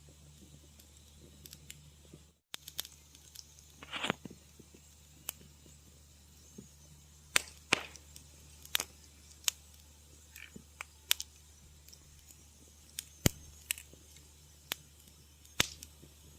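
Wood fire crackling in a fireplace: sharp, irregular pops and snaps of varying loudness over a faint low hum, with a short hissing burst about four seconds in. The sound drops out completely for a moment a little over two seconds in.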